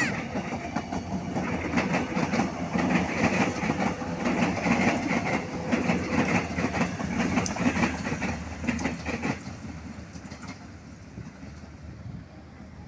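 A train passing close by, its wheels clattering over the rail joints in quick, uneven clicks, then fading away after about nine and a half seconds.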